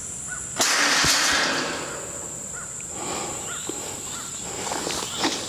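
Steel hog-trap drop door falling shut when triggered remotely, a sudden loud metal crash about half a second in that rings off over about a second. A steady high insect drone and short repeated bird chirps run behind it.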